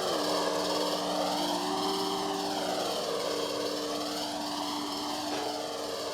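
Experimental electronic soundscape: a hissing noise wash that slowly sweeps up and down in colour, over steady held tones that step down in pitch.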